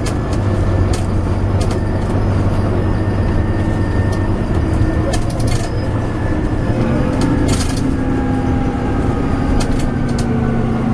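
Volvo B9TL bus engine heard from inside the passenger saloon, running steadily under way, its note shifting a little past halfway through, with scattered sharp clicks and rattles from the bus body.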